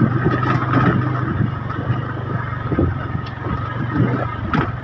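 Small motorcycle engine running steadily at low speed, with scattered knocks and rattles as it rides over bumps.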